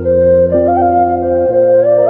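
Background music: a slow melody over held chords, the chord changing about three-quarters of the way through.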